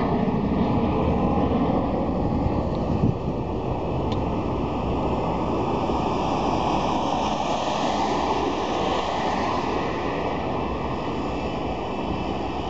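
Steady rushing rumble of a departing jet airliner fading into the distance after takeoff, easing off slightly about three seconds in, with wind on the microphone.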